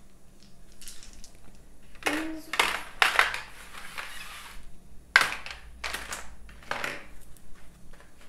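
Board game pieces and packaging being handled, heard as a series of short crackling, crunching bursts: the loudest is a longer run about three seconds in, with sharper ones near five and six seconds.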